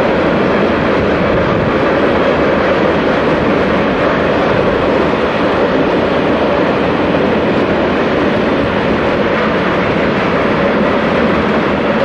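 Coke-laden Eas open freight wagons rolling past, a loud, steady rumble of steel wheels on rail with no distinct wheel clicks.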